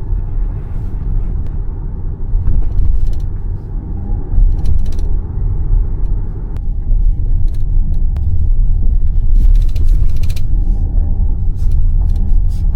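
Jeep Grand Cherokee cabin on a bumpy road: a dull, hollow low rumble from the tyres and suspension, with crisp crackling rattles coming from under the rear seats at intervals. The crackle is interior fittings set vibrating by what is left of each jolt.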